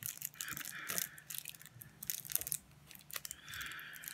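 A small wrapping bag crinkling and rustling in the hands as a stone is worked out of it, with many light crackles and clicks and two longer rustles, one about half a second in and one near the end.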